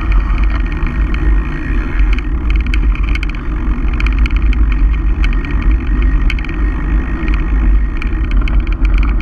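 Mountain bike riding fast downhill: wind buffeting the microphone and tyres rolling over paving make a steady low rumble. Frequent short rattling clicks come from the bike's chain and parts as it runs over bumps.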